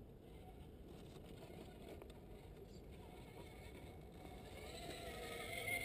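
Faint whine of an RC crawler's electric motor and gears, a Tekin 35T brushed motor, growing louder and rising slightly in pitch near the end as the truck drives.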